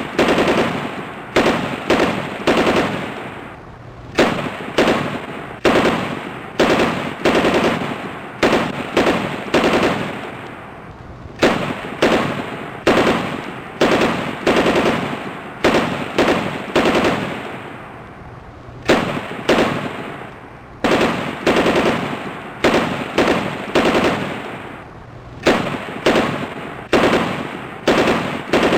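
Machine gun sound effect: short bursts of rapid automatic fire, one after another, each trailing off in a fading echo.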